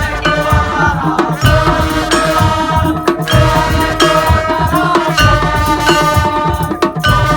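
Madurese tong-tong ensemble music: drums beating a dense, driving rhythm under a sustained, bending melodic line.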